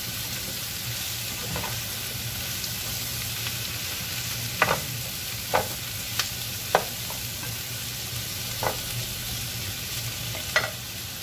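Carrots, bell peppers and onion sizzling in oil in a frying pan as they are stir-fried with a spatula, with about half a dozen sharp clacks of the spatula against the pan, the first about halfway through.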